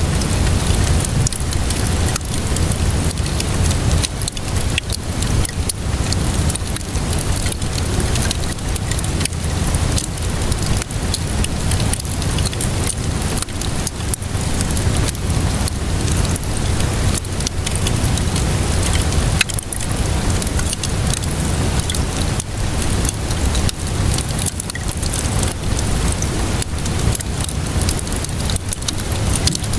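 Steady rainfall mixed with a crackling fire: a continuous even hiss with a low rumble underneath, dotted with many sharp little pops and crackles.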